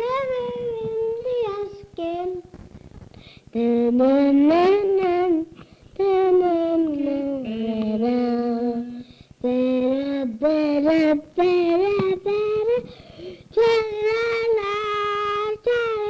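A young boy singing a tune in long held notes, in short phrases with brief pauses, heard from an old home cassette recording; the child's voice is gravelly.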